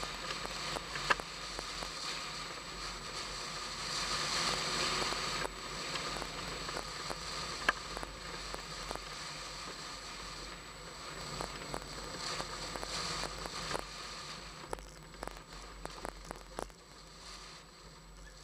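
Wind buffeting and car running noise, muffled through the waterproof case of a hood-mounted camera on a moving Pontiac Fiero, with rustling crackles and two sharp clicks. It grows quieter near the end.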